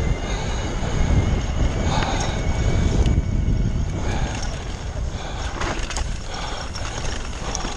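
Foes Hydro 2 e-bike ridden fast down a dirt trail: tyres rumbling and the bike rattling over bumps, with wind buffeting the on-board microphone. A couple of sharper knocks come about three and six seconds in.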